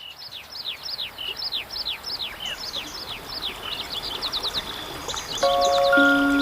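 A songbird singing a rapid series of downward-sweeping whistled notes, about three a second, shifting to shorter, higher notes about halfway through. Near the end, music with held tones comes in, louder than the bird.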